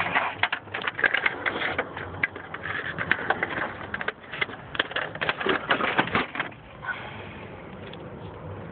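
Rapid, irregular plastic clicks and knocks as the top scanner assembly of a Dell A960 all-in-one printer is lifted off and handled. The clatter stops about six and a half seconds in.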